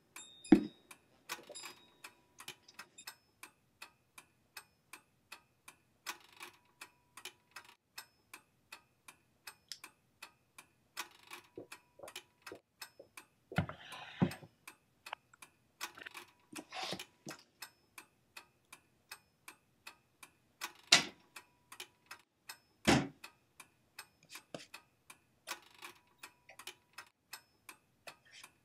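Steady, evenly spaced ticking, about three ticks a second, dubbed in as a sound effect. It is broken by a few louder knocks, one about half a second in and two more about two seconds apart near the twenty-second mark, and by a short noisy clatter about fourteen seconds in.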